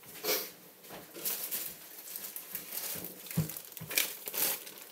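A plastic bag crinkling and rustling in irregular crackles as it is handled, with a soft bump about three and a half seconds in.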